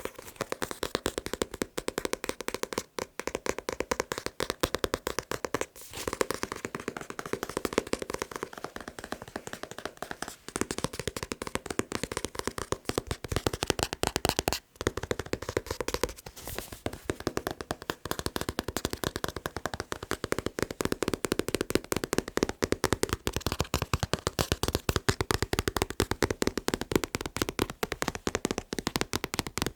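Fast tapping on a manga book, a dense run of quick taps that breaks off briefly a few times.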